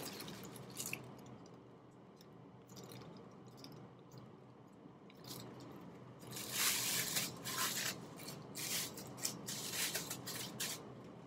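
Thin plastic shower cap crinkling and rustling as gloved hands stretch it over the head and adjust it, in irregular handling noises that grow denser and louder in the second half.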